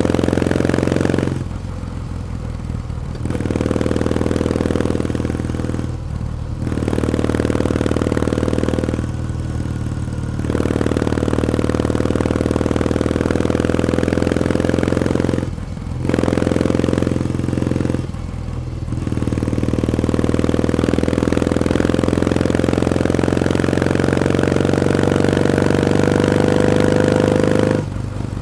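Kawasaki W1 Special's 650 cc vertical-twin engine running under way, its exhaust note rising steadily in pitch as the bike pulls. About six times the throttle is eased off and the sound drops briefly, then it picks up again.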